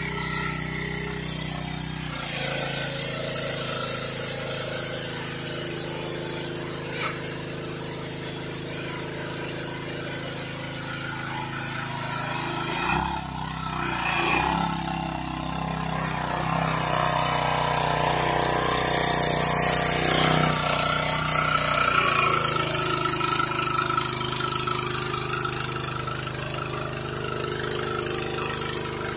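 Pressure washer running steadily, its motor note shifting a few times as the load changes, with a hissing water jet over it.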